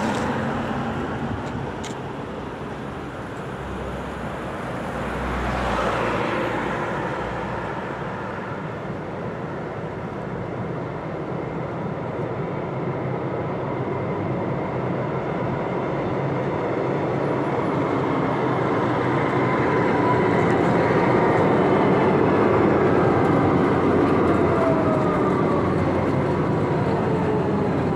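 Tram running along street track toward the stop, a rumble of wheels on rail that grows steadily louder, then falling electric whines near the end as it slows into the platform. A road vehicle swells and passes about five seconds in.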